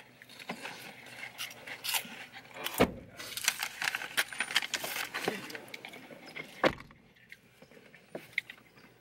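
Light clinking and rustling handling noises inside a car, with two heavy thumps, one about three seconds in and one near seven seconds.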